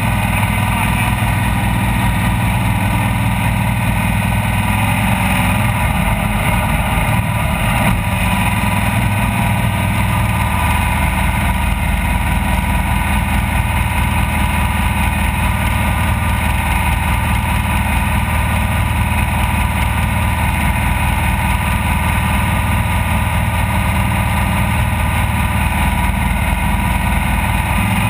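Off-road race vehicle's engine running steadily at speed, loud and continuous, its pitch holding roughly level with small shifts along the way.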